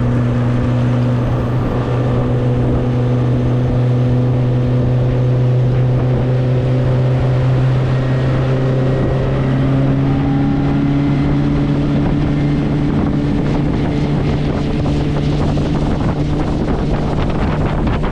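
Outboard motor of a small fishing boat running at speed, a steady engine drone whose pitch steps up slightly about halfway through, with wind on the microphone.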